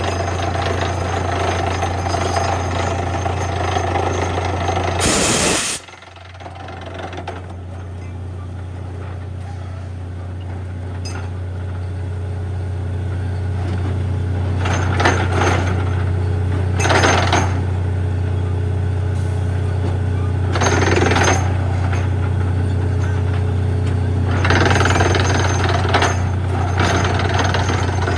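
Borewell drilling rig running: a steady low engine drone. About five seconds in there is a sudden loud burst and the drone briefly drops, then builds up again. Several shorter bursts of rushing noise follow in the second half.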